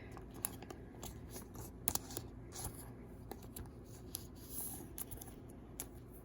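Faint handling of trading cards: scattered light clicks and soft rustling as the cards are moved and set down.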